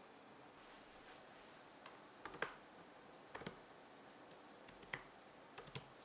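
Handling clicks and taps of hard plastic parts: a handful of short, sharp clicks, several in close pairs, over a quiet room. The loudest comes about two and a half seconds in.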